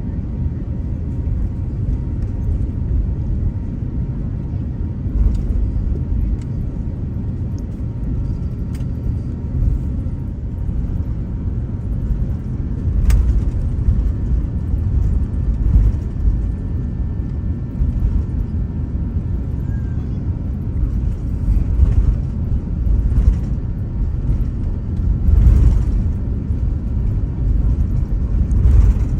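Airbus A350-900 cabin rumble as the airliner rolls along the ground with its Rolls-Royce Trent XWB engines running, the landing gear thumping over pavement joints several times.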